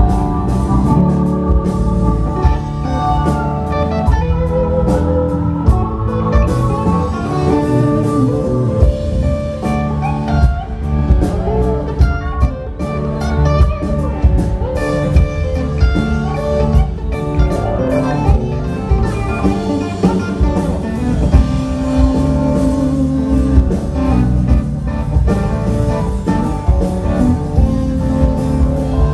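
Live rock band playing an instrumental passage: an electric guitar lead with bent notes over drums, bass and organ.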